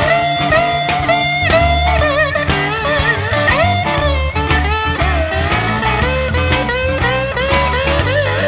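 Blues-rock band playing an instrumental break. An electric guitar plays a lead line with string bends and vibrato over bass and drums.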